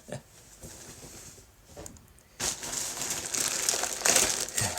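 Plastic packaging crinkling loudly as a package is handled and opened, starting abruptly about halfway through after a quiet stretch of light rubbing.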